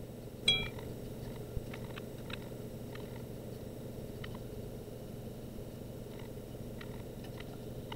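Faint taps and rubbing from a paintbrush working over a wooden model airplane wing, over a steady low room hum, with one sharp click and a brief ring about half a second in.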